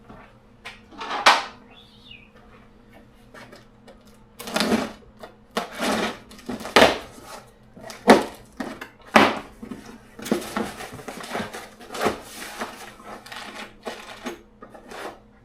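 Parts being unpacked from a box: irregular clinks, knocks and rustles as a handle and caster wheels are handled and taken out.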